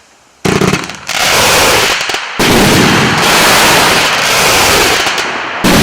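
Fireworks going off: a loud, dense rushing noise that starts suddenly about half a second in. It keeps up almost without a break, dipping briefly near one second, a little past two seconds and near the end.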